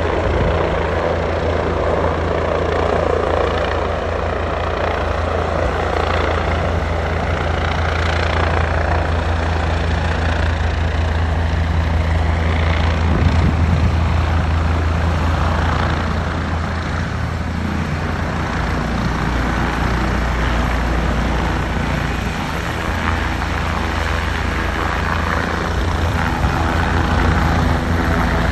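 Helicopter close by as it comes in to land in the open: its rotor and engine run continuously as a loud, steady low drone under a broad rushing wash.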